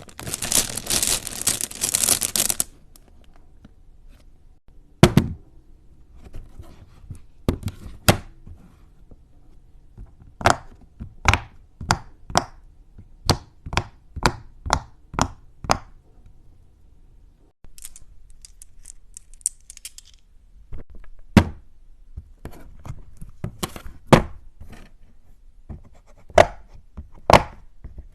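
Sharp, separate pops and taps from a silicone pop-it fidget toy being handled, at times coming about once or twice a second. A dense crackling rustle fills the first couple of seconds.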